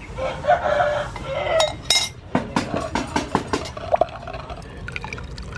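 Metal spoon scraping and clinking against a ceramic bowl as tamarind sauce is scooped into a wooden mortar, then a run of quick knocks from a wooden pestle working the sauce into the pounded chili and garlic.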